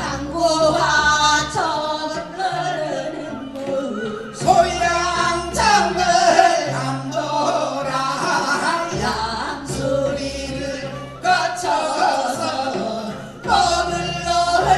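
Korean folk singing by a group of singers with microphones over an amplified backing track with a steady bass line.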